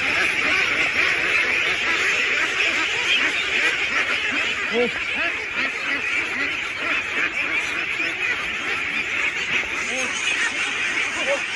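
A large flock of domestic ducks quacking all together in a dense, continuous chorus of many overlapping calls.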